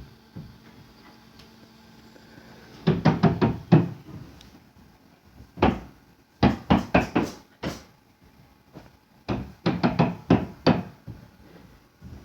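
Loud banging knocks in quick volleys: three runs of about six hard knocks each, a few seconds apart, with a single knock between the first two.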